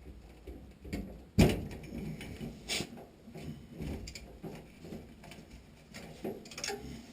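Scattered clicks, knocks and rustles of hands working on a furnace's parts and wiring, with one sharp knock about a second and a half in and another clear click near three seconds.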